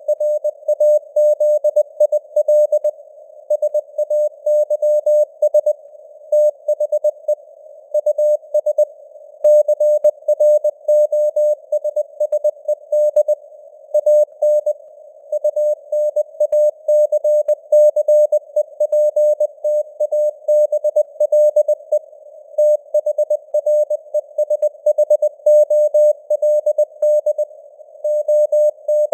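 Morse code at 20 words per minute: a single steady mid-pitched tone keyed on and off in dots and dashes, with short pauses between letters and words. Under it is a faint hiss of simulated radio band noise.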